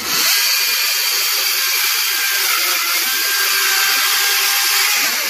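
Husqvarna 536LiXP battery chainsaw running at full speed, its chain cutting through a log with a steady hiss. The cut stops about five seconds in.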